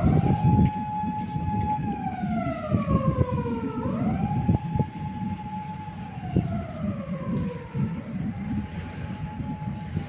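A siren wailing, each cycle rising quickly, holding a high note for a second or two, then sliding slowly down, about every four seconds. A steady low rumble lies underneath.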